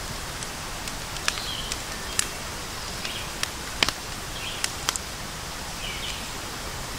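Wood campfire crackling: a handful of sharp pops and snaps, irregularly spaced and loudest about four seconds in, over a steady outdoor hiss.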